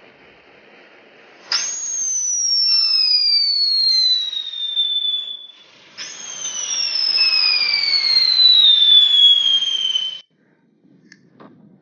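Whistling fireworks: two long whistles, each falling steadily in pitch over about four seconds, the first starting about a second and a half in and the second about six seconds in, over a hiss. The sound cuts off suddenly near the end.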